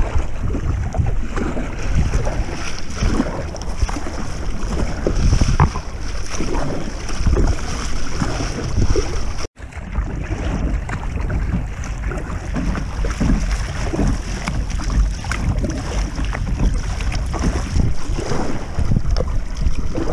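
Sit-on-top kayak being paddled over a choppy sea: water splashing and sloshing against the hull with the paddle strokes, under a heavy rumble of wind on the microphone. The sound breaks off for an instant about nine and a half seconds in.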